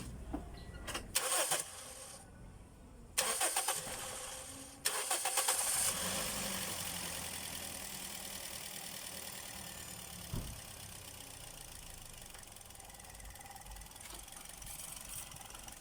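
Toyota Vios four-cylinder engine cranked in short bursts by its starter, catching about five seconds in, running up briefly and then settling to idle. The engine has failed ignition coils, the cause of its rough, dropping idle.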